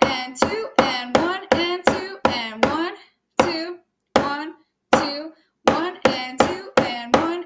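Drumstick strokes played through a 2/4 snare-drum reading exercise, sharp strokes about three a second with a few longer gaps, with a voice counting the beats along with them.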